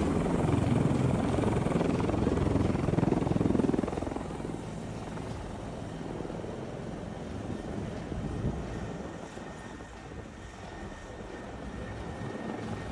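Helicopter rotor chopping close by, loud at first, then dropping in level about four seconds in.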